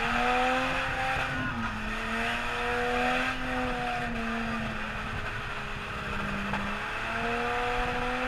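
Nissan four-wheel-drive's engine revved hard under load climbing a rock wall, held high and sagging briefly between three surges of revs.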